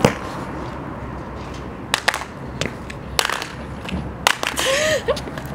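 An iPhone in a hard protective case clattering on pavement as it is thrown and dropped: a sharp knock at the start, then scattered knocks about two, three and four seconds in. A brief hiss comes near the end.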